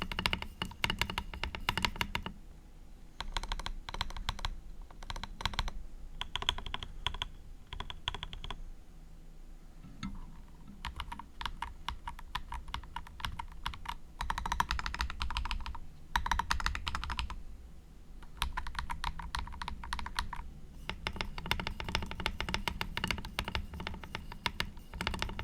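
Typing on an AKKO 5075B Plus mechanical keyboard, with a plastic plate and foam inside: fast runs of keystrokes in bursts of a few seconds, broken by short pauses.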